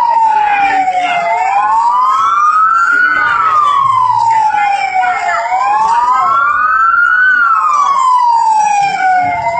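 Emergency vehicle siren on a slow wail, its pitch rising for about two seconds and falling for about two, over and over.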